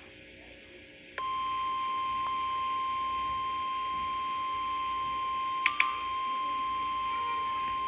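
Emergency alert warning tone: a single steady tone, the 1050 Hz weather radio alarm tone, switching on abruptly about a second in over a faint hiss and holding without a break. Two brief clicks sound a little past the middle.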